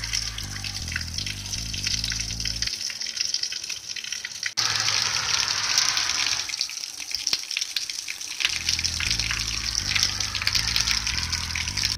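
Music with a stepping bassline that drops out twice, under a loud, steady, water-like hiss.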